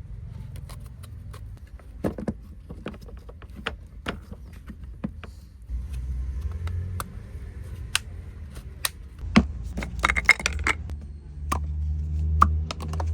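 Scattered sharp clicks and metallic clinks of small parts and tools being handled, with a low hum that swells twice, about halfway through and near the end.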